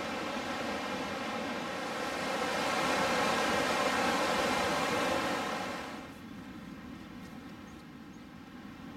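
Steady rush of a fast-flowing river running over rapids; it swells about two seconds in and drops to a quieter rush about six seconds in.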